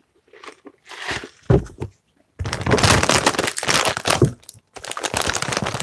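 Chip bag crinkling and crackling as it is picked up and handled, in two stretches starting about two and a half seconds in. Before that, a soft knock about a second and a half in.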